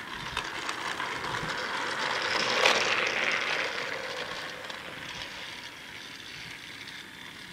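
Battery-powered Trackmaster toy engine running along plastic track and climbing an incline, its small motor whirring and its trucks rattling. The sound swells a couple of seconds in, with a click near its loudest point, then fades.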